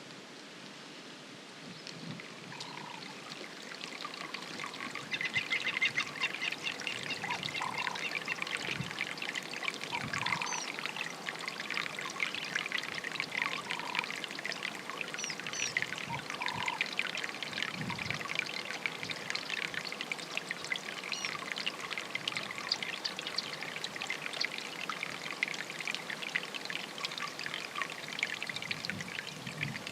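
Water running and trickling, a steady fine crackle that swells in over the first few seconds. A short call sounds about every two seconds over it.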